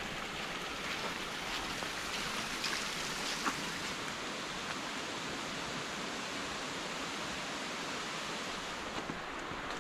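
Mountain creek running over rocks: a steady rushing of water, with a few faint ticks over it.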